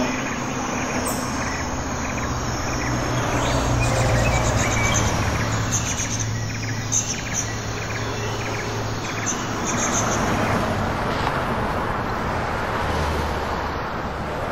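Stock sound-effect street ambience: a steady wash of traffic noise with a low engine hum under it, and small birds chirping over it, the chirps clustered in the middle.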